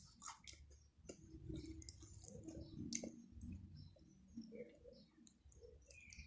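Faint eating sounds from a person chewing close to the microphone: soft chewing with scattered small wet mouth clicks and smacks.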